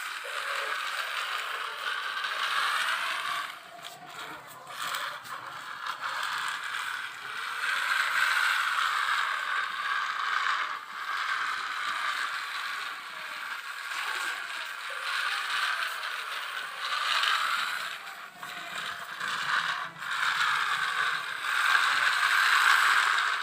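Small plastic toy cars rolling and sliding down a plastic toy slide track, a continuous rattling whirr of little wheels that drops away briefly several times.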